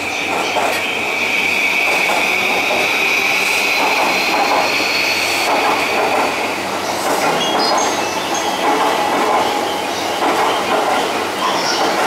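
Yamanote Line E235 series electric train moving along the track past the station. A high, steady wheel squeal lasts for about the first six seconds, then gives way to the rumble and clatter of the cars running over the rails.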